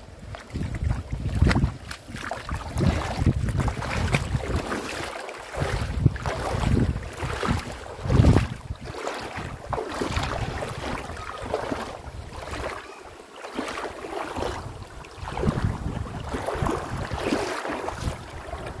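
Gusty wind buffeting the microphone in uneven swells, over the rush of river water.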